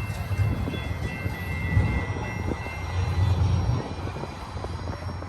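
Freight cars of a double-stack intermodal train rolling past: a steady low rumble of steel wheels on rail with irregular clacks and knocks.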